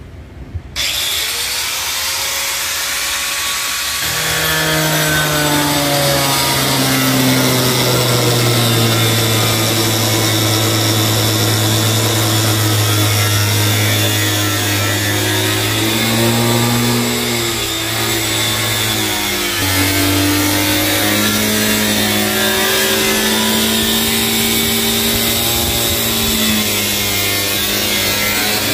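Angle grinder with a wood-cutting disc starting up about a second in and cutting into a wooden tabletop: a loud, continuous motor whine and rasp whose pitch dips and recovers as the disc is pushed into the wood.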